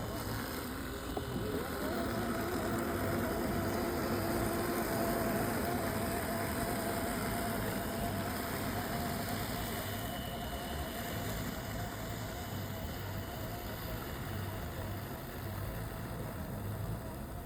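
Robotic lawn mower running steadily: a motor hum with a thin, level whine above it.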